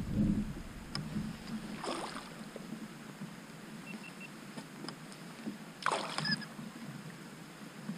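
Hooked northern pike thrashing and splashing at the water's surface beside a kayak while being played on the line: a splash about two seconds in and a louder one about six seconds in.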